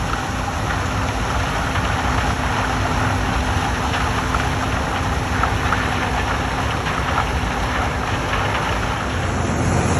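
Combine harvester running steadily while picking corn: a constant engine drone with light, irregular crackling over it.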